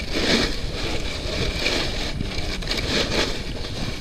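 Ice shifting and crunching in a cooler, in three surges, over a steady rumble of wind on the microphone.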